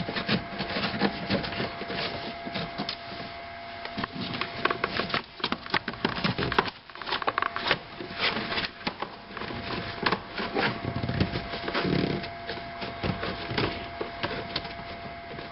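Heater blower hose and its fittings being handled and pushed into place by hand: an irregular run of rubbing noises and clicks.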